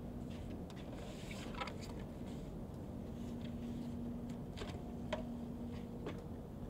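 A few scattered light clicks and knocks as a ScanEagle drone's wing is handled and fitted to its fuselage, over a steady low hum.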